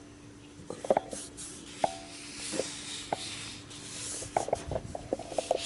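Carbon-fiber vinyl film being rubbed and smoothed down by hand onto the car's window trim: a soft scraping with scattered small clicks and brief squeaks.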